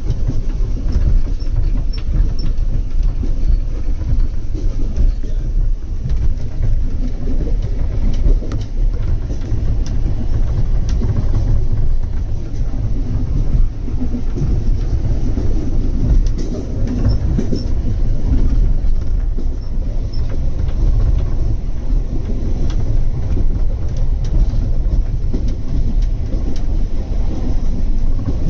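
Steady low rumble of a moving vehicle, heard from inside it, with faint scattered clicks and rattles over it.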